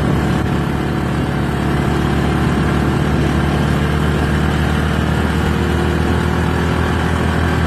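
Small motorcycle engine running steadily at an even road speed.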